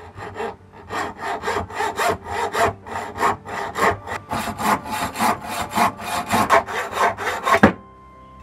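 Hacksaw cutting a thin steel rod held in a bench vise: fast, even back-and-forth strokes of a metal-cutting blade that stop abruptly near the end.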